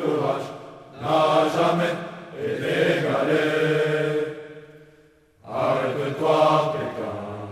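Male choir singing in unison, phrase by phrase with short breaks between phrases.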